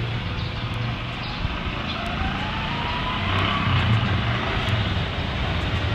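City traffic noise: a steady rumble of road vehicles, with one engine rising in pitch about two seconds in.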